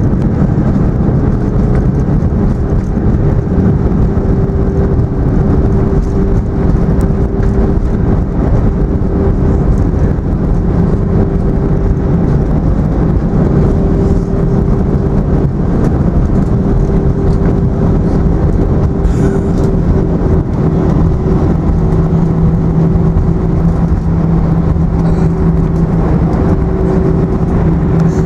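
Cabin noise inside an Airbus A320-200 on its landing rollout: a loud, steady rush of engines and runway rumble with a constant hum. A lower hum comes in about ten seconds in and grows stronger in the last third.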